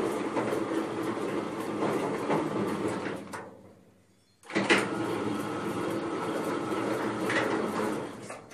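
Electric sliding gate's motor and gear drive running, with the gate rattling along its toothed rack. It runs down about three and a half seconds in, then starts again about a second later and runs to near the end.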